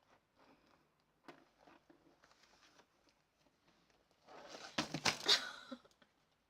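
Faint rustling and handling noises, then a louder burst of rustling with a few sharp knocks about four and a half seconds in, lasting a little over a second.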